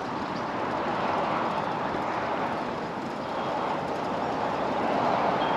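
Steady rushing and rustling of a plastic tarp being dragged and worked across a roof in a strong wind.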